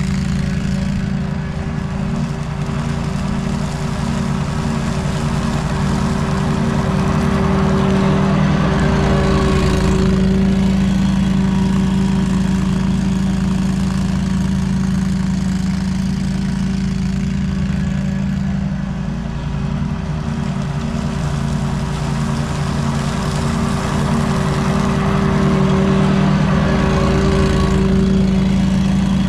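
Walker riding mower's engine running steadily as it mows and collects fallen leaves into its rear catcher, getting louder as it passes close near the end.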